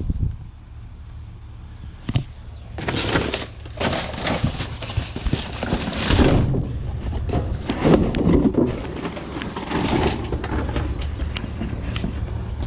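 Rummaging through trash: irregular rustling and crackling of bags and junk being pushed around, in several noisy bursts from about three seconds in, over a steady low rumble.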